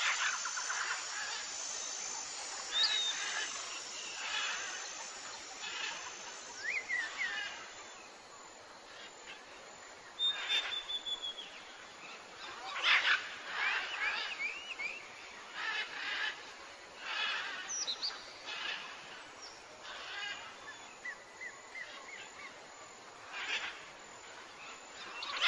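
Several wild birds chirping and singing, with short chirps, quick trills and brief rising and falling whistled notes coming at irregular intervals over a faint hiss.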